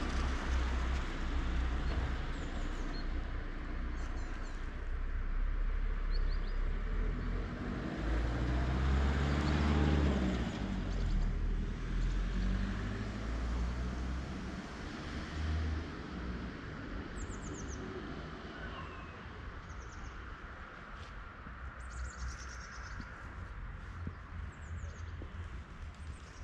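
Street ambience: a car passes, its sound building up and fading away around the middle, over a low traffic rumble. Small birds chirp in the second half.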